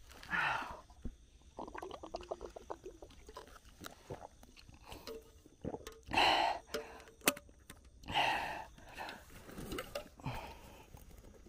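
An exhausted man breathing heavily, with loud breathy exhales about half a second in, around six seconds and around eight seconds. A short run of rapid clicking or rattling comes about two seconds in.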